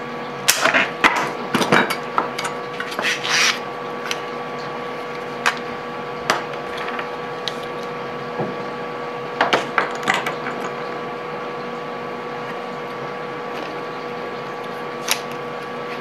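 Tin snips cutting through liquid-tight flexible conduit: a quick run of sharp crunching snips in the first few seconds. Scattered clicks and clatters follow as tools and conduit are handled on the workbench, over a steady faint hum.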